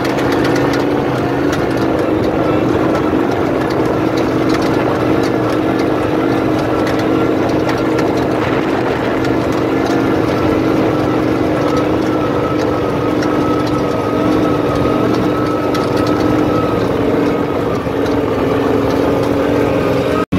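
Turbocharged LS V8 of a Tatum sand car running under way across the sand, its engine note held at a steady pitch.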